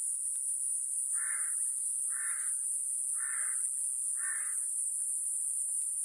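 Iwasaki grass cicada singing a steady, very high-pitched buzz. Over it a bird calls four times, about a second apart.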